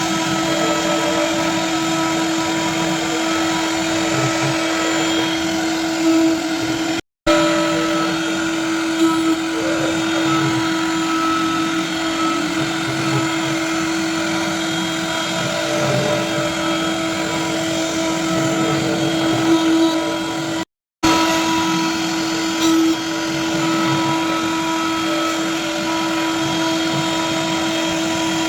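Servo-driven CNC lathe running: a steady machine hum with a constant whine and fainter higher tones over it. The sound cuts out completely twice, each time for a moment.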